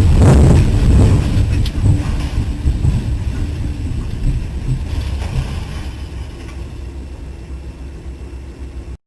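Strong storm wind buffeting the microphone, a dense low rumble that is loudest at first, fades steadily and then cuts off abruptly near the end.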